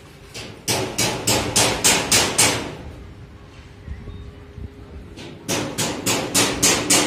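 Hammering: two runs of quick, sharp blows, about four a second, with a pause of a few seconds between them.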